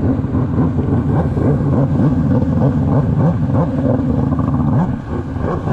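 Stand-up jet ski engine running close by under varying throttle, its pitch rising and falling, over the rush of water.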